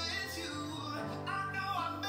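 A man singing with live band accompaniment, a bass guitar holding steady low notes underneath, played back through a television's speakers.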